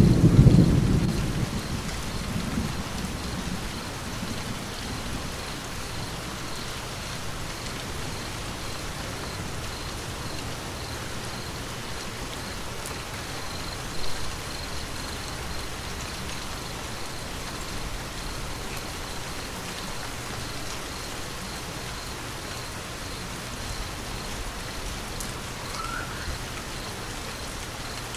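Steady rain with a low thunder rumble at the start that dies away over the first few seconds.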